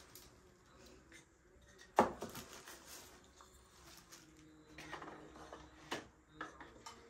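Pump bottles and glass jars being set down and moved on a plastic shelf: light knocks and clatter, the loudest knock about two seconds in and a few more near the end.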